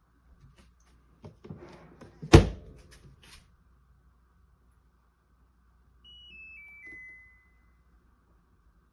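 A few light clicks and handling noises, then one sharp thunk about two and a half seconds in, a door shutting on an AIRMSEN countertop mini dishwasher. A few seconds later a four-note electronic chime steps down in pitch, a control-panel beep.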